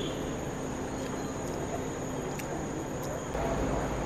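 Steady background ambience with a continuous high-pitched whine, and a few faint clicks of a metal spoon against the plate. A low rumble comes in about three seconds in.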